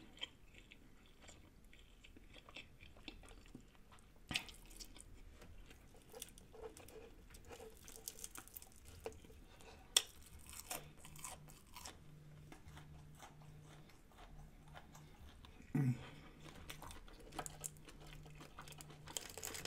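Chewing and crunching through crispy fried food, with scattered mouth clicks and two sharper crunches, about four and ten seconds in.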